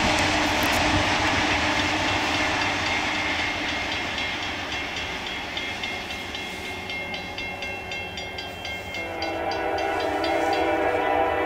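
ALCO diesel train running past, its rumble fading away. Then a grade-crossing bell rings rapidly, and about two-thirds of the way through the approaching locomotive's horn sounds a held, several-note chord.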